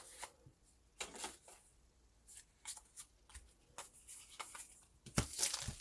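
Pokémon trading cards being slid and flicked through by hand: soft, scattered papery scrapes and clicks, with a louder rustle and thump near the end.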